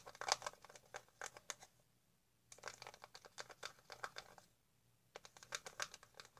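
A mixing tool stirring thick shampoo in a cup, making quick scraping clicks in three spells with two short pauses between them.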